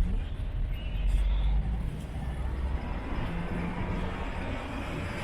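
Street traffic: a heavy low vehicle rumble that fades over the first few seconds, under steady road noise.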